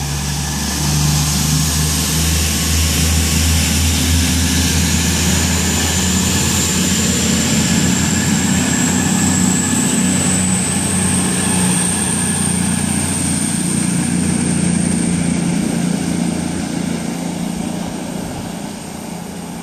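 CrossCountry Class 220 Voyager diesel-electric train, 220027, pulling away under power. Its underfloor diesel engines run with a low drone and a high whine that rises slowly in pitch over the first dozen seconds, and the sound fades as the train draws away.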